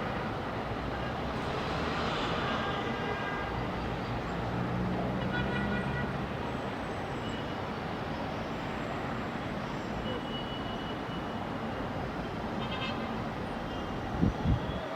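Steady hum of city traffic. Near the end, two short low thumps.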